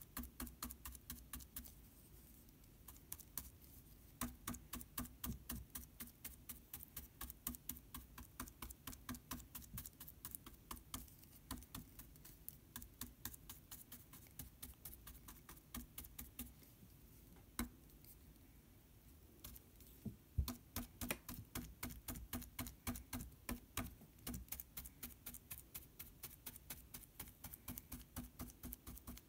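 Paintbrush dabbing paint onto the surface: light, rapid taps at about four a second, in runs with short pauses.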